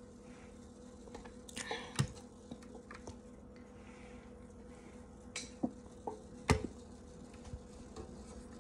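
A steady low hum under a handful of short, sharp clicks and knocks as an aluminium soda can is handled and drunk from; the loudest knocks come about two seconds in and again after six seconds.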